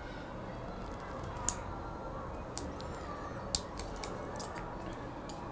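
A few short, sharp clicks, the two loudest about one and a half and three and a half seconds in: a small cutter snipping off the excess of twisted nylon fishing line on a feeder rig.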